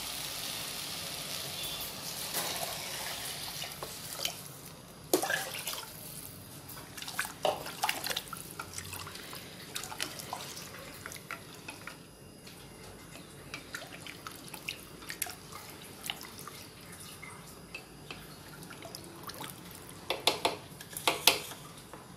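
Water being poured into a steel pot of rice and oil-fried whole spices, then stirred with a wooden spatula that knocks against the pot now and then, with a quick run of knocks near the end.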